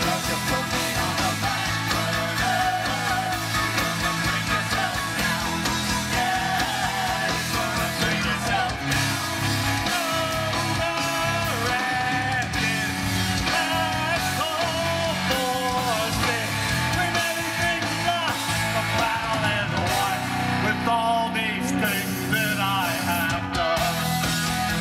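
Live rock band playing an instrumental passage: electric guitars, bass and drums at full volume, with a wavering lead line over a steady beat.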